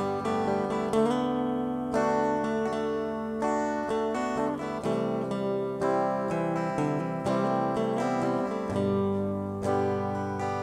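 Background music led by acoustic guitar, with strummed chords and plucked notes at a steady pace.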